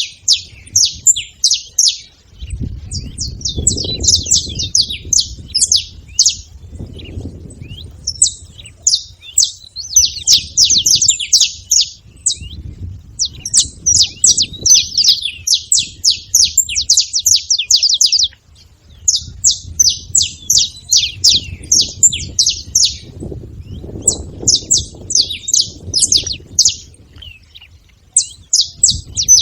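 Saffron finch calling in fast bursts of sharp, high chirps, each burst a couple of seconds long with short pauses between, repeating steadily. A low rumble comes and goes underneath.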